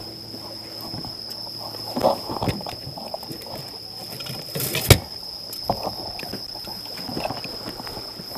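Handling noises from fishing gear on a rock breakwater: scattered knocks, clicks and rustles, with a sharp knock just before the five-second mark. A steady high thin whine runs underneath.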